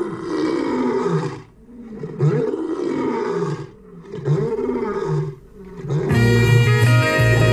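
Recorded lion roars, three long roars about a second and a half each with short pauses between them. About six seconds in, a hip-hop beat starts, with a plucked guitar sample over heavy bass.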